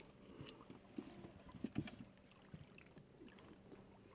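Faint water lapping and sloshing against a fishing boat's hull, with a few small clicks and knocks, while a hooked northern pike is played alongside.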